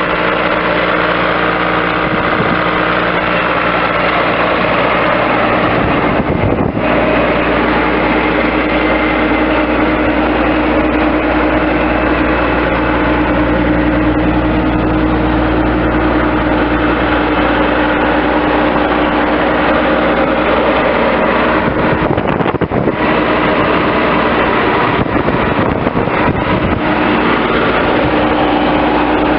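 2005 Bobcat S185 skid steer loader's diesel engine running steadily with a held tone. The sound changes briefly about a quarter of the way in and a few times about three-quarters of the way in.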